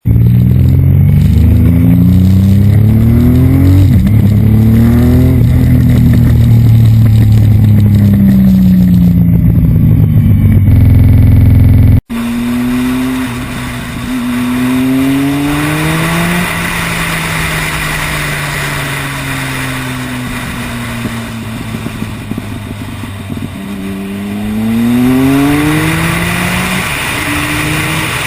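Triumph Speed Triple 1050's three-cylinder engine through an Arrow race half-system exhaust, revved up and let fall again and again. It pops and bangs on the overrun as the revs drop. It is very loud for the first twelve seconds, then a cut to a quieter take.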